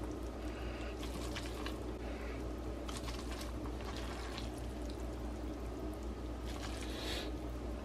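A fork stirring and lifting saucy glass noodles (dangmyeon) with rice cakes in a paper bowl: faint wet squelching and small scattered clicks over a low steady hum.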